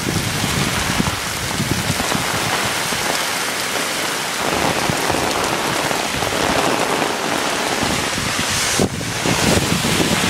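Heavy typhoon rain pouring down in strong wind, a loud, dense, steady hiss with gusty surges in the low end.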